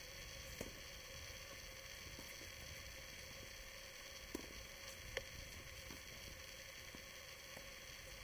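Faint, steady hiss from the camera's built-in microphone, with a few faint pops of tennis balls struck by rackets: one about half a second in and two about a second apart near the middle.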